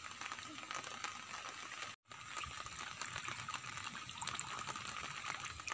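Water trickling and lapping around a bamboo lift net and its pole being worked in a flooded river, with a faint steady high tone behind it. The sound drops out completely for a moment about two seconds in.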